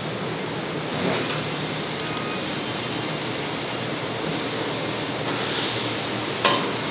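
Steady hiss of shop background noise, with a few light clicks and one sharp click near the end as a gas lift strut is snapped onto its mount on a plastic storage box lid.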